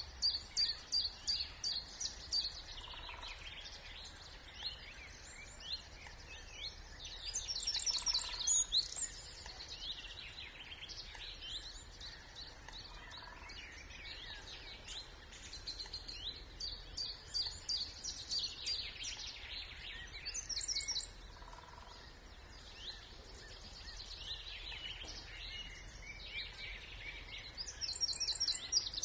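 Several songbirds singing over one another in a spring wetland, with rapid high trills and quick repeated chirps coming in bursts, loudest about eight seconds in, around twenty seconds in and near the end. Under them runs a steady faint low rumble.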